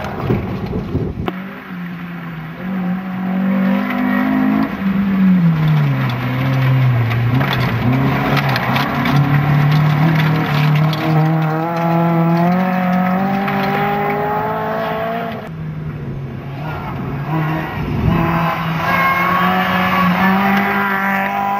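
Small front-wheel-drive rally cars on a gravel stage, one after another, among them a Honda Civic and a Ford Ka. Their engines rev hard through the gears. The note climbs, drops back about five seconds in, then climbs steadily for several seconds under acceleration. The sound changes abruptly twice as each new car takes over.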